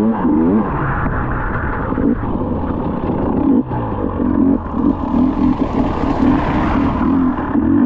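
Off-road motorcycle engine being ridden, revving up and down with the throttle opening and closing. A rushing hiss swells up over it about five seconds in.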